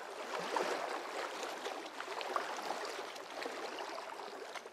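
Intro sound effect: a steady fizzing hiss sprinkled with many small crackling ticks, with little bass, easing off near the end.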